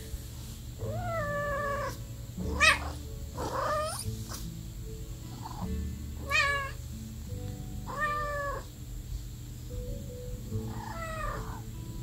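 Russian Blue kitten giving a string of short, whiny meows, about seven in all, as it is stroked while half asleep: the grumbling of a kitten fussing at being woken.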